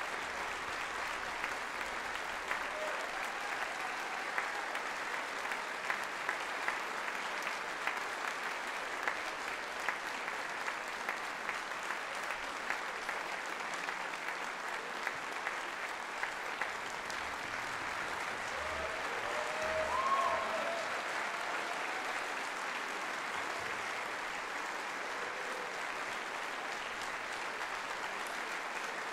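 Large audience applauding steadily in a concert hall, with a few voices calling out about two-thirds of the way through.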